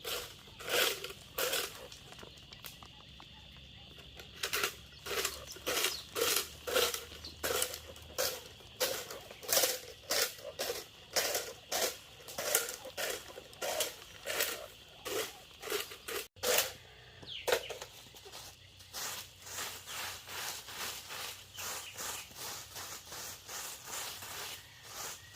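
A long run of short, rhythmic, noisy strokes, about two a second, like a tool working by hand. The strokes break off about sixteen seconds in and resume fainter and quicker.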